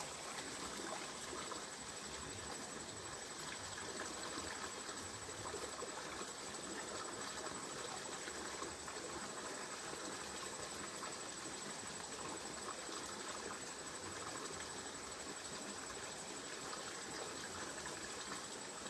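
Stream water running steadily, with a thin, steady high-pitched insect drone over it.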